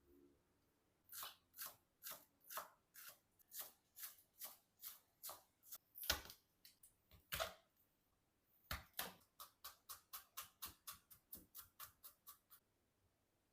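Kitchen knife cutting food on a cutting board: evenly spaced cuts about two a second, a brief pause, then a faster run of about three a second.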